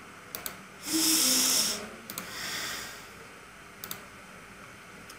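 A person's loud, hissy breath close to the microphone lasting about a second, then a fainter second breath, with a few sharp mouse clicks scattered through.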